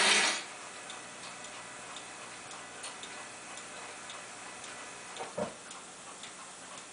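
A loud mechanical rattle from the model train running on its track cuts off in the first half second. After that a clock ticks steadily, about one and a half ticks a second, with one soft knock a little after five seconds in.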